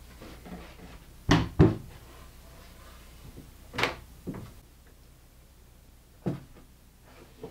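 Birch plywood cabinet doors being opened and shut, giving sharp wooden knocks: two loud ones in quick succession about a second in, another in the middle, and fainter ones later.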